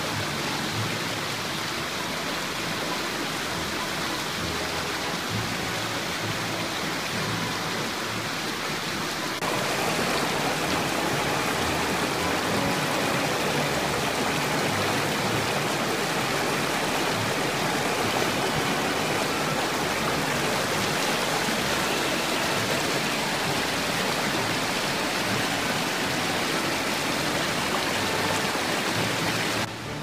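A stream rushing over rocks and small cascades: a steady rush of water that gets louder about a third of the way in.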